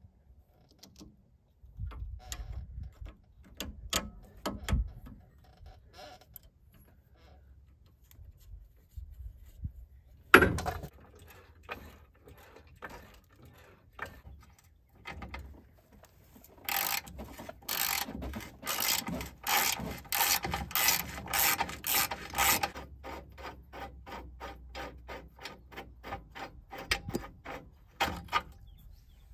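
Ratchet wrench clicking in quick, even strokes as a sway bar end link nut is turned on a truck's front suspension, loudest in the middle and softer later on. One sharp metallic knock comes about a third of the way in.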